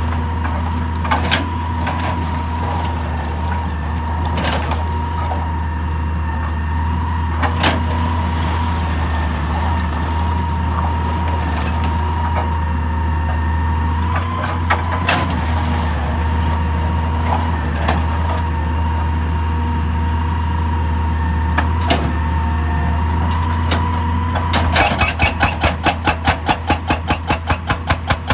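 JCB excavator's diesel engine running steadily under load, with a few single knocks of rock or steel. About 25 seconds in, a rapid run of hammer blows starts, about five to six a second: a hydraulic rock breaker pounding rock.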